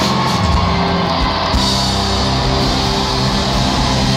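Live rock band playing with electric guitars, drums and keyboards, heard loudly through a large concert sound system from the audience. The bass and drums fill in fully about a second and a half in.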